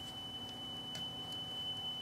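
Steady 3 kHz speed-calibration test tone played from a test tape on a Marantz 5220 cassette deck, with a few faint clicks over it. The meter reads it at 3.000 to 3.012 kHz, so the deck is running at very nearly the correct tape speed.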